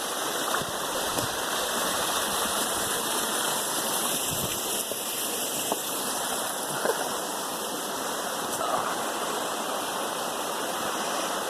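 Steady rushing of a waterfall and river: an even hiss of falling and flowing water, with a few faint brief knocks.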